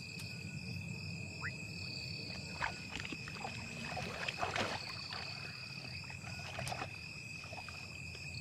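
Night insects, crickets, trilling steadily in a high, unbroken drone, with scattered short rustles and clicks over a low background rumble.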